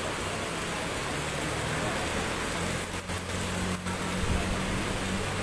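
Steady rushing noise of strong typhoon wind and the swollen, fast-flowing river in flood, with a low steady hum underneath.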